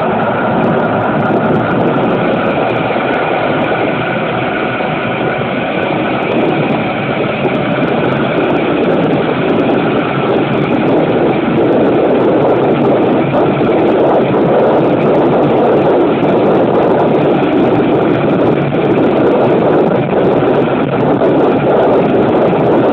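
KiHa 20-series diesel railcar KiHa 205 running along the line, heard through an open window: the diesel engine's drone and the wheels on the rails, under heavy wind buffeting on the microphone. The noise is steady and grows slightly louder after about seven seconds.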